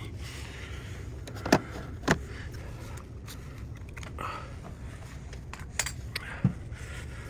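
Scattered sharp metallic clicks and clinks of hand tools and engine parts being handled, with two louder clinks about a second and a half and two seconds in and a few lighter ones near the end.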